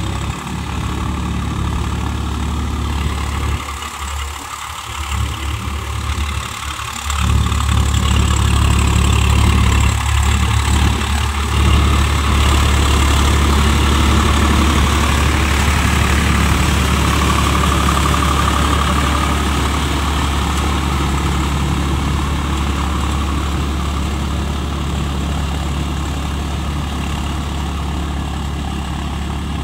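Swaraj 855 FE tractor's three-cylinder diesel engine running steadily while pulling a rotavator through wet paddy soil, louder from about seven seconds in.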